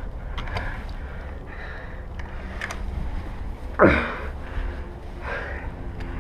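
Heavy, sniffly breathing close to the microphone, a breath or sniff about every second with one louder one near the middle; the wearer's allergies are acting up. A low rumble of movement or wind on the microphone runs underneath.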